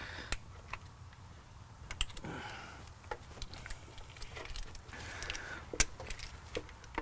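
Irregular small metallic clicks and taps of a hand tool and a fuel-line fitting being handled, with a sharper click about two seconds in and the loudest one near the end.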